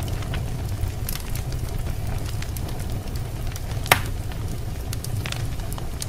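Fire sound effect: a steady low rumble of flames with scattered crackles and one sharp pop about four seconds in.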